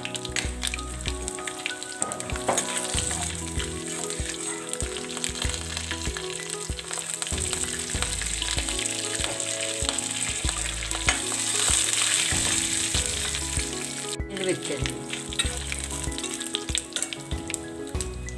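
Tempering spices frying in hot oil in a kadai: mustard seeds, urad dal, cumin, green chillies and dried red chillies sizzle with a dense crackle of small pops, stirred with a steel ladle. The sizzle swells louder about eleven to thirteen seconds in, after the green chillies have gone in.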